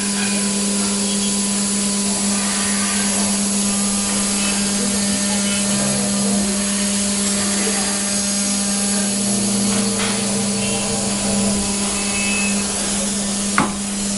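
5-axis CNC router spindle running at steady speed and milling a block held in a vise, a constant hum with steady higher whine tones over the hiss of cutting. One sharp knock sounds near the end.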